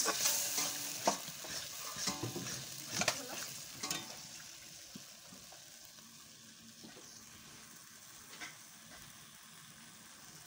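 Curry frying and sizzling in a metal kadai while a metal spatula stirs it, scraping and clicking against the pan. About four seconds in the stirring stops and a softer sizzle carries on, with one light click later.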